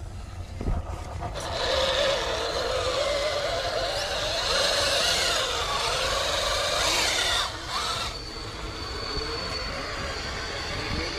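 Electric motor and gearbox of a radio-controlled crawler whining, rising and falling in pitch as the throttle changes; from about eight seconds in it settles to a steadier high whine.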